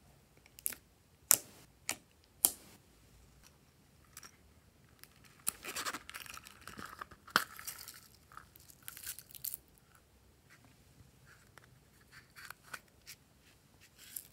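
Glossy slime being squeezed and pulled apart by hand, making sticky snapping and tearing sounds: four sharp snaps in the first few seconds, a denser crackling stretch around the middle, then scattered lighter clicks.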